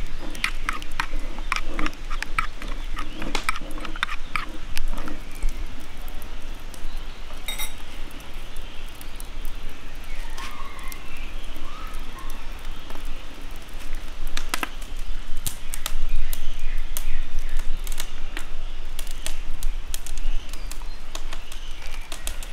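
Scattered sharp clicks and knocks over a steady low rumble, most frequent in the first few seconds, with a short chirp-like sound near the middle.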